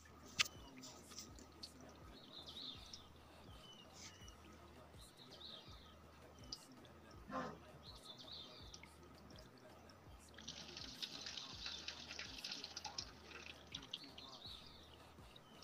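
Faint handling of dry corn husk being folded by hand, with a sharp click near the start and a dry crinkling crackle lasting about two seconds past the middle.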